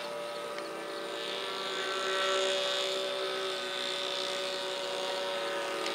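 Radio-controlled model airplane flying overhead, its motor and propeller giving a steady droning whine that drifts slightly in pitch.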